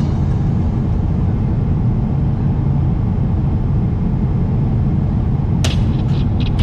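Steady low rumble of an airliner cabin in flight: the jet engines and airflow heard from a seat inside the cabin. Near the end there are a few short light clicks.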